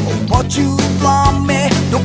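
Pop-rock song: a man singing over a band with bass, guitar and drums.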